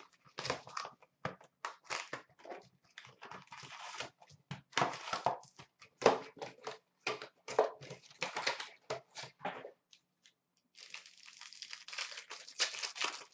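Foil trading-card packs being torn open and their wrappers crinkled and rustled, in irregular bursts, with a brief pause about ten seconds in before a denser stretch of crinkling.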